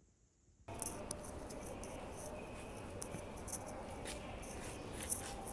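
Near silence for under a second, then a steady background hum with many quick rustles and clicks from carried bags while walking on a tiled pavement.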